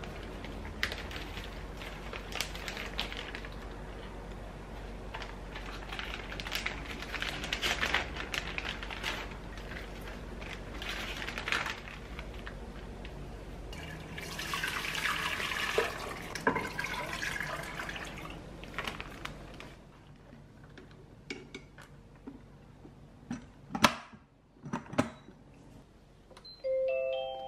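Plastic bag rustling and crackling, then water poured from a glass measuring jug into an electric rice cooker's inner pot for several seconds. Near the end come a few clicks and a short electronic beep from the Cuckoo rice cooker as its keep-warm button is pressed.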